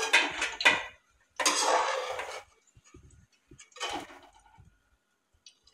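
Perforated metal spoon scraping the aluminium kadhai while scooping out fried onions, in three strokes, the second longest and loudest, followed by a few faint clinks.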